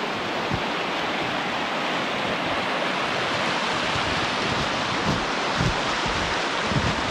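River rushing steadily over shallow rapids, with a few soft low thumps in the second half.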